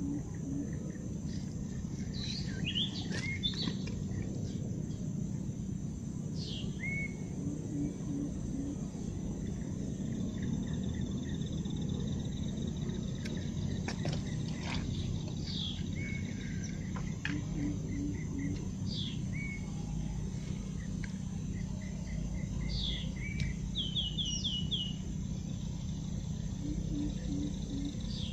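Wild birds calling over a riverbank, with many short high chirps and quick falling whistles, over a steady high insect drone. A low steady rumble runs underneath, and a low call of three or four quick notes comes back about every nine seconds.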